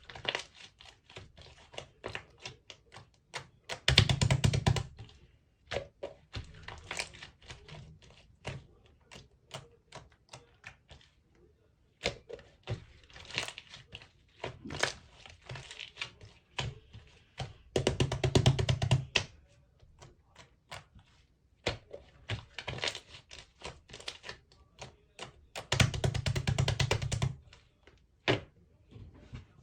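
Clear slime being squeezed and stretched by hand, giving a run of sticky clicks and small air-bubble pops. Three denser, louder bursts of crackling squish come about 4, 18 and 26 seconds in.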